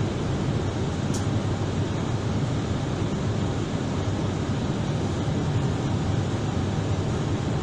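Steady cabin noise of an Airbus-family airliner taxiing, its engines running with a low rumble.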